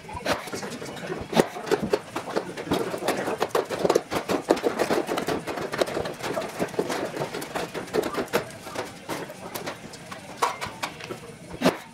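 Irregular sharp clicks and clacks of hand tools working on an aluminium wing skin during flush riveting, with clecos and rivets being handled along the leading edge.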